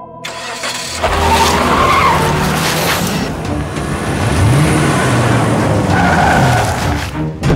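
Ford Endeavour SUV started up and driven off hard, its engine revving up and down with tyres skidding on a dirt driveway, then cutting off near the end.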